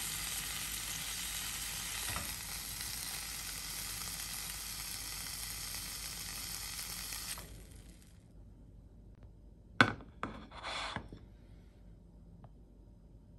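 Pork-belly-wrapped cherry tomato skewers sizzling in a frying pan, being finished on high heat to crisp the surface. The sizzling stops about seven seconds in, followed a couple of seconds later by a sharp clack and two short scrapes.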